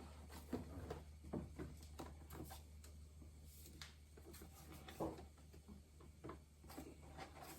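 Faint scattered clicks and rustles of a car door's lock mechanism being handled and worked out of the door, with a slightly louder tap about five seconds in, over a low steady hum.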